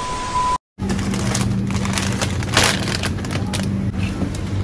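A steady 1 kHz test-tone beep over static, a colour-bars edit effect, cuts off sharply under a second in. After a brief dropout comes a steady low hum, with a plastic crisp bag crinkling and bottles knocking as they are carried.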